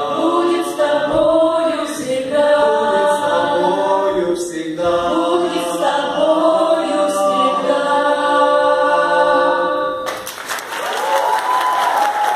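Small mixed-voice ensemble singing a cappella in close harmony, ending on a held chord about ten seconds in. The audience then breaks into applause.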